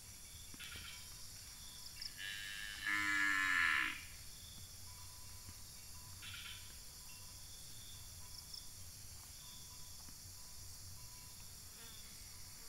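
A cow moos once, loudly, about three seconds in, over a steady background of insects buzzing and chirping.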